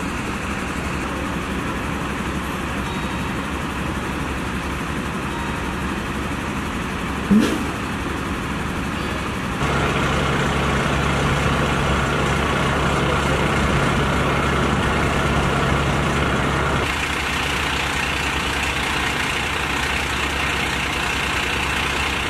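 Fire engines' diesel engines running steadily at the roadside, their hoses laid out and connected. The steady hum changes abruptly about ten seconds in and again near seventeen seconds. There is one short loud bump about seven seconds in.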